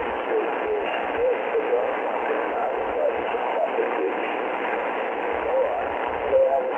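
Shortwave pirate broadcast on 6.955 upper sideband from an Icom IC-R30 receiver: a faint, barely readable voice buried in steady static hiss, with thin, narrow-band audio typical of a weak signal.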